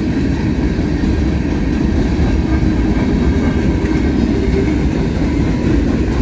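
Freight train cars, a run of hopper cars, rolling past: a steady loud rumble of steel wheels on the rails.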